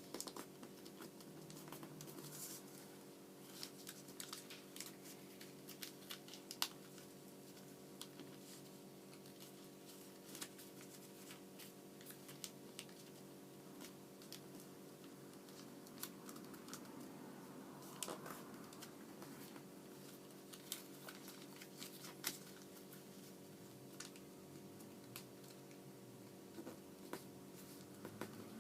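Sheet of origami paper being folded and creased by hand: scattered faint clicks and crinkles, over a steady low electrical hum.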